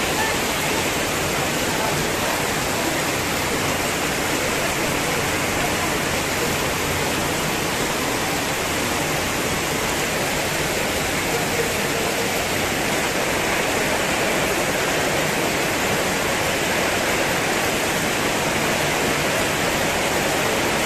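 Heavy rain pouring down onto a paved street and puddles, a steady, even hiss of countless drops splashing on wet ground and water.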